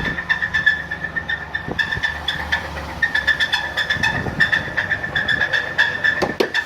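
Ford Ranger engine running with a fast, even knock ticking through it, which the owner suspects is an early rod knock or other bottom-end trouble, though not a bearing.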